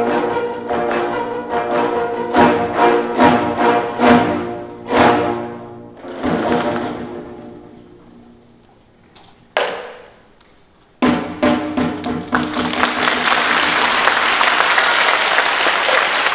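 Gayageum ensemble with a janggu hourglass drum playing the end of a piece: a run of loud plucked chords that die away, a pause, then two last sharp strokes. Audience applause breaks out about three-quarters of the way through.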